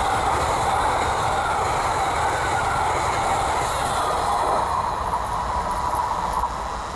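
An Amtrak Northeast Regional train of Budd Amfleet coaches passing at speed: a steady rush of steel wheels on rail with a faint thin wheel whine. It eases slightly near the end as the last cars go by.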